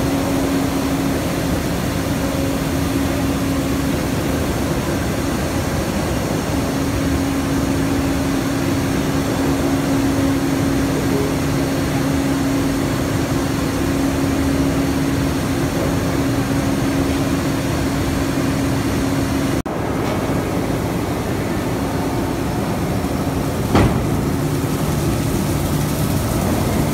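Steel plant machinery running steadily: a constant hum over a broad industrial rush. About twenty seconds in the sound drops out briefly and a lower hum takes over, and a single sharp click comes near the end.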